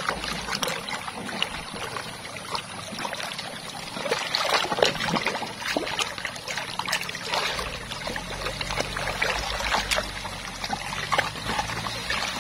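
Shallow running water in an irrigation channel splashing and sloshing as hands dig a large mud-stuck toy truck free and pull it through the water. Many small splashes over a steady trickle, busier from about four seconds in.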